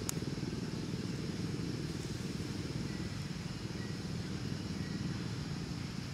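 A steady low rumble, with a brief sharp click right at the start.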